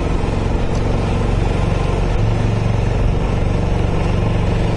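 Suzuki V-Strom 1000 XT's V-twin engine running steadily while riding, heard over continuous wind and road noise.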